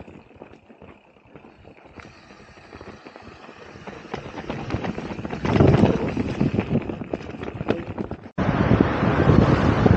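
Mountain bike descending a dirt and rock forest trail: tyres rolling over dirt and stones with the bike clattering and rattling, growing much louder about halfway through. Near the end the sound breaks off suddenly and gives way to loud wind buffeting the microphone.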